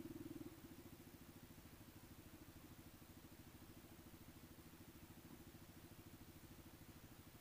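Faint engine idling: a low, steady hum with a fast, even pulse, a little louder for the first half second before it settles.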